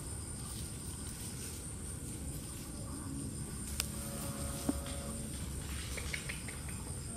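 Outdoor ambience: a steady high-pitched insect drone over low background noise. A sharp click comes about four seconds in, and a few short faint chirps near the end.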